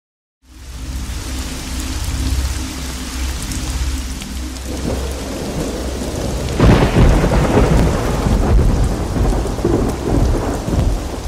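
Thunderstorm: steady rain with a deep rumble of thunder, rising in about half a second in. A louder crack and roll of thunder breaks about two-thirds of the way through.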